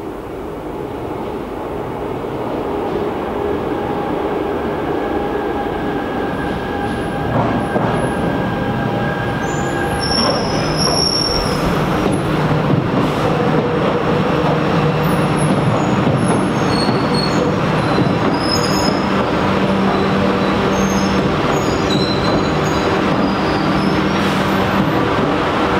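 Buenos Aires Subte Line A series 200 train running slowly into the depot tunnel, growing steadily louder as it approaches. A steady hum lies under the rumble, and brief high-pitched wheel squeals come from about ten seconds in.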